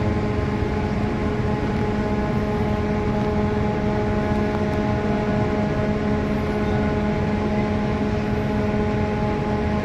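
Ship's machinery drone: a steady hum holding several constant tones over a rushing noise bed, unchanging throughout.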